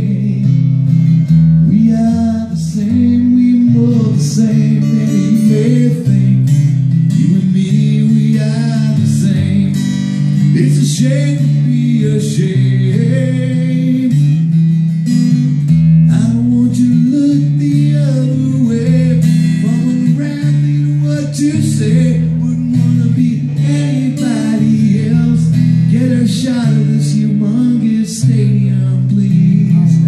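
A man singing an original song while strumming an acoustic guitar that he plays with his feet, his voice through a microphone.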